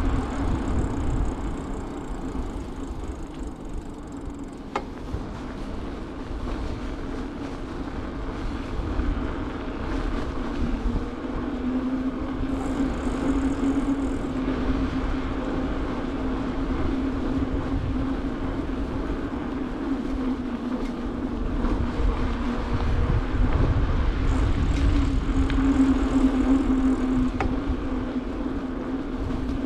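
A mountain bike rolling along a paved street, heard from the rider's camera: wind rumble on the microphone and steady road noise, with a hum that swells twice.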